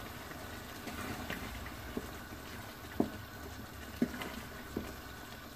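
Dried-fish and cucumber curry simmering in a pot with a steady soft bubbling, while a wooden spatula stirs it and knocks lightly against the pot about five times.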